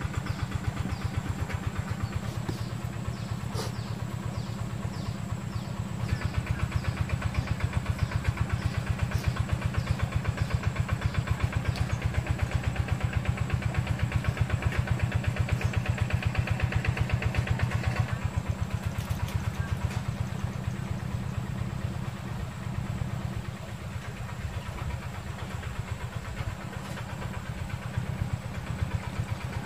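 An engine running steadily with a rapid low throb, growing louder from about six seconds in and easing back about eighteen seconds in. A short high chirp repeats about twice a second during the first third.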